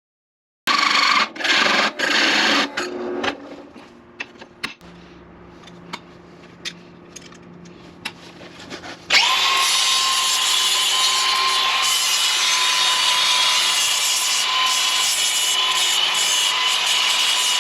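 Handheld electric drill cutting a steel plate with a 2.5-inch hole saw. After a few seconds of clattering knocks and clicks, the drill starts about nine seconds in and runs steadily, with a constant high whine over the grinding of the saw teeth in the metal.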